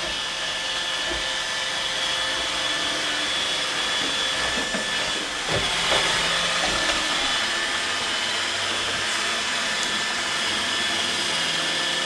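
iRobot Roomba 880 robot vacuum cleaner running steadily as it cleans: an even whirring with a thin, high steady whine on top.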